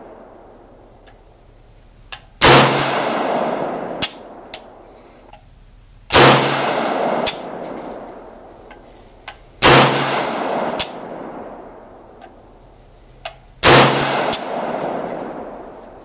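Four single shots from an AR-15 rifle in .223, spaced about three and a half seconds apart. Each shot is followed by a long echo that dies away over about two seconds, and there are small clicks between the shots.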